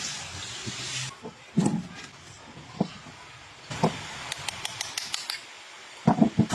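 Separate knocks and clicks of handled metal parts or hand tools, with a quick run of light clicks in the middle and a cluster of heavier knocks near the end.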